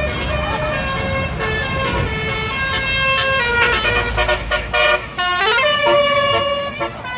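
Tour bus's 'telolet basuri' musical air horn playing a melody of held notes that change in steps, with a rising slide a little past halfway, over the low rumble of traffic.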